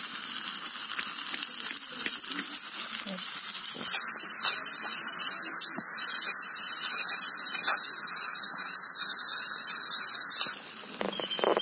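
Steady frying sizzle from onions and tomatoes in a small clay pot over a wood fire, which cuts off abruptly near the end. Around it come light taps and scraping of a clay pestle crushing garlic and ginger in a small clay mortar.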